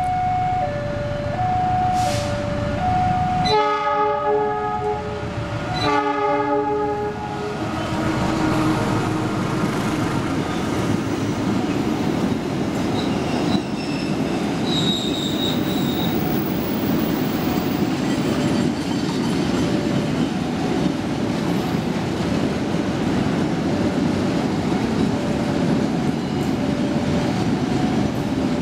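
A level crossing's electronic warning signal beeps, alternating between two tones. A train horn sounds two blasts, about three and six seconds in, then the train runs past with a steady rumble and rattle of wheels on the rails while the crossing signal keeps beeping faintly under it.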